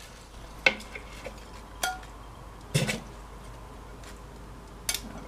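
Metal salad tongs clinking against a glass bowl while serving salad: four sharp clinks spread over the few seconds, one of them ringing briefly.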